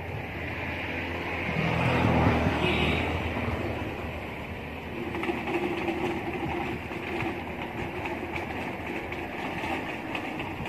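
A motor vehicle passing, its engine swelling to loudest about two seconds in and then easing to a steady hum.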